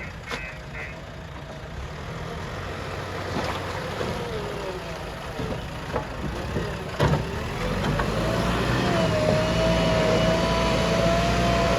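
JCB 3DX backhoe loader's diesel engine running at work, with a few sharp metal knocks. About eight seconds in the engine gets louder and a steady whine joins it.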